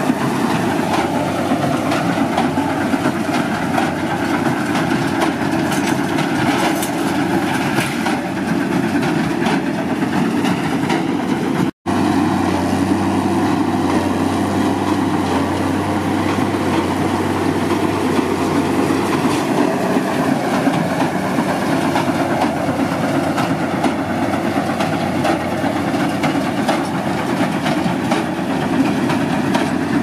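New Holland T7070 tractor's six-cylinder diesel running under load through an open, unsilenced exhaust pipe, towing a Case IH LB433 large square baler that is pressing straw. The sound cuts out for an instant about twelve seconds in.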